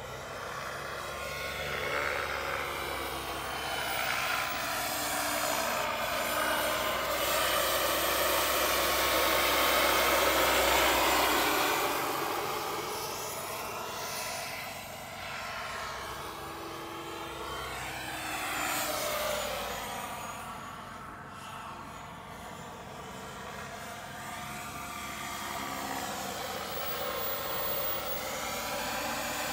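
Turbine-powered RAW 700 model helicopter flying low and hovering: a steady turbine whine mixed with rotor noise. It swells to its loudest about ten seconds in, fades, then comes back up, and its tone keeps sweeping and phasing as the helicopter moves about.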